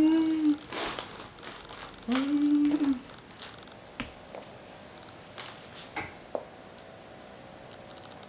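Two short hummed notes from a person's voice, each about a second long, followed by scattered light clicks and knocks of a plastic VHS tape case being handled.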